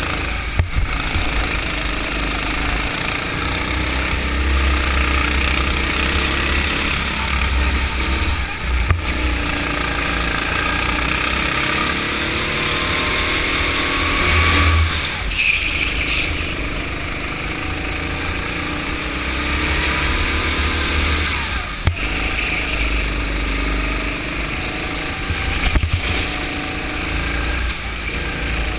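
Go-kart engine running at speed, heard from onboard, its pitch rising and falling with the throttle through the corners and dipping briefly a few times. A heavy low rumble runs under it.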